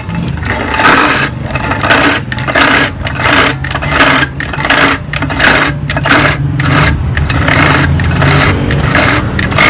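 A 500-watt double-blade electric ice crusher running. The motor hums steadily while the blades bite into the ice in uneven bursts of crunching, roughly one or two a second. The crushing goes in fits and starts rather than continuously.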